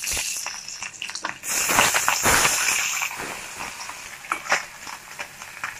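Small mourala fish sizzling in hot mustard oil in an aluminium wok, the hiss loudest between about one and a half and three seconds in. A spatula knocks against the wok twice about four seconds in.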